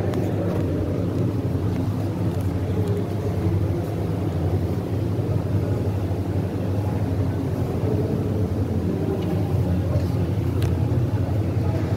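A steady low hum and rumble, even and unbroken, with a faint click or two near the end.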